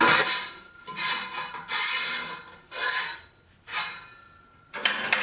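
Cast-iron collar on a drill press column being worked loose after its set screw is backed off: metal scraping on metal in about six short strokes roughly a second apart, with a faint metallic ring.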